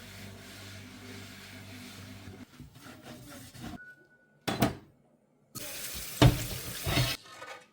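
Kitchen sounds: water running from a tap and dishes clattering, in short bursts separated by abrupt silences, after a steady low hum in the first couple of seconds.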